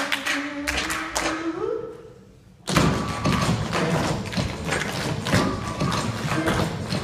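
Tap shoes striking a stage floor, with hand claps, over music carrying a held note that rises and fades out about two seconds in. After a brief lull, loud upbeat music with rapid tap strikes starts abruptly just under three seconds in.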